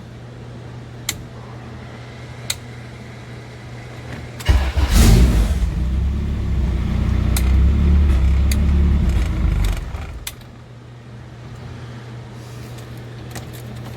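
Switches click twice over a steady electrical hum; then, about four and a half seconds in, the turbocharged H2B engine of a Honda Civic cranks and starts, runs steadily for about five seconds, and shuts off. It is started from the newly wired switch panel.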